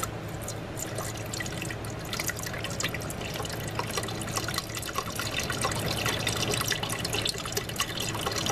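Chicken broth pouring in a steady stream from a carton into an electric pressure cooker's inner pot, splashing and bubbling as it fills, slightly louder in the second half.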